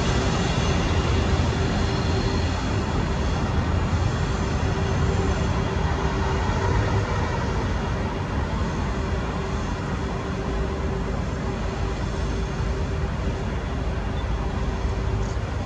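Freight train of covered hopper wagons rolling away over the rails: a steady rumble of wheels on track with a steady humming tone over it, growing slightly quieter.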